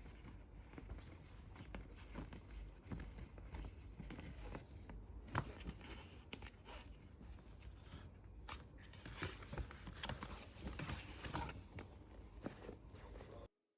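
Quiet handling of packaging during a perfume unboxing: soft rustling and scraping with scattered light clicks and taps.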